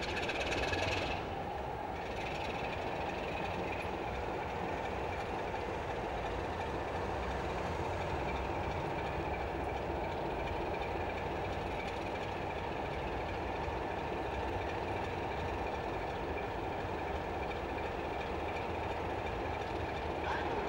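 British Rail Class 33 diesel locomotive's Sulzer eight-cylinder engine idling steadily while the locomotive stands. A brief louder, higher-pitched sound comes in the first second.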